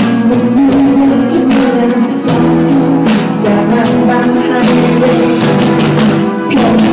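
A band playing a song live, with guitar and a singing voice over a steady beat.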